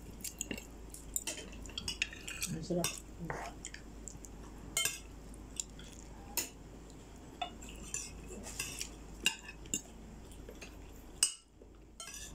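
Spoons and forks clinking and scraping against plates and a serving pot during a meal, in scattered irregular clinks.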